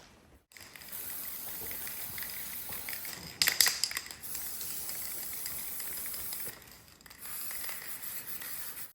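Steady broad hissing noise that starts and stops abruptly, with a short cluster of sharp knocks about three and a half seconds in.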